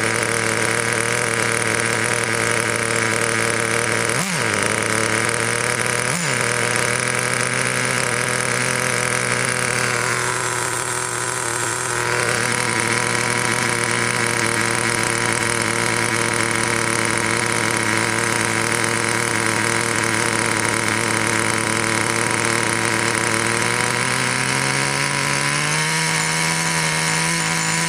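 Traxxas 2.5 nitro two-stroke RC engine idling steadily, with two brief dips in speed a few seconds in and a small rise in speed near the end. It is a freshly fitted second-hand engine that the owner says sounds sweet and idles lovely.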